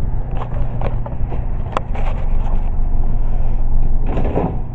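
Steady low hum with scattered light clicks and knocks, and a louder knock and rustle about four seconds in, the sounds of something being handled.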